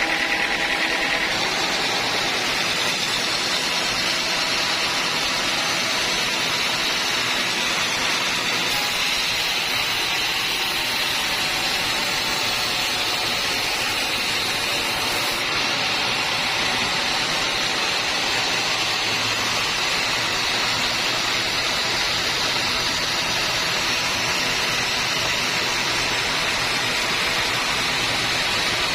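Band sawmill blade cutting through a teak log, a steady even hiss without a break.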